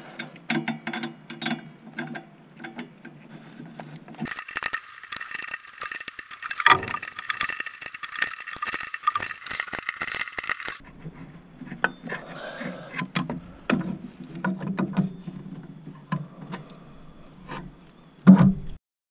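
Hand tools and metal parts clinking and rattling in irregular clicks and knocks as the EGR tube fitting is worked loose from the exhaust manifold of a 1996–2000 GM pickup, with one louder knock near the end.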